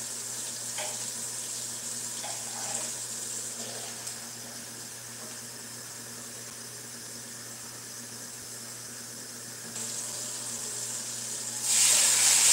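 Flour-and-fat roux sizzling steadily in a skillet as it browns for gravy, with a few faint ticks. Near the end it turns into a much louder, brighter hiss as hot water is poured into the hot roux.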